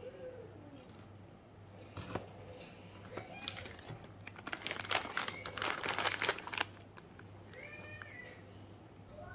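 Clear plastic pouch crinkling and rustling, with loose roasted peanuts rattling, as the pouch is filled with peanuts and handled. Scattered clicks come first, then a dense run of crinkling from about three to seven seconds in.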